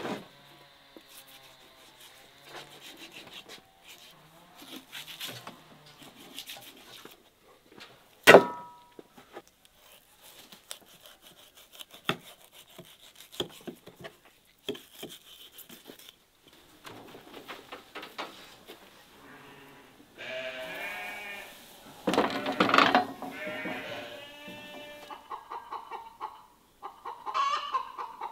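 A knife working through a raw lamb carcass on a wooden board: scattered small clicks and scrapes, with one sharp knock and a brief metallic ring about eight seconds in. In the second half, livestock bleating several times.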